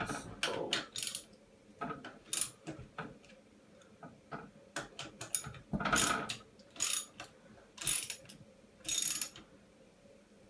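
Socket ratchet fitted with an Allen bit, clicking in a dozen or so short, uneven bursts as the bike's disc brake caliper bolts are tightened.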